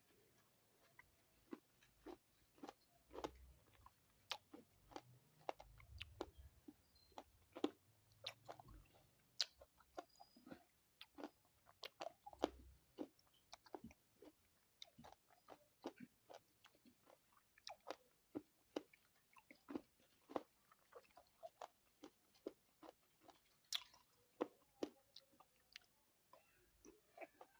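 A person chewing and biting fruit close to the microphone: a run of sharp, irregular crunchy clicks, two or three a second.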